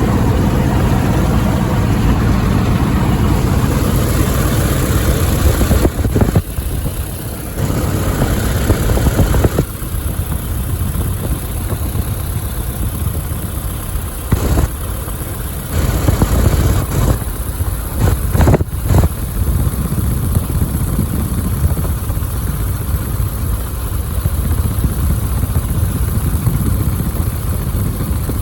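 Biplane's piston engine running loud, heard from inside the aircraft on the runway. Its sound shifts in level and tone several times, most noticeably between about six and nineteen seconds in.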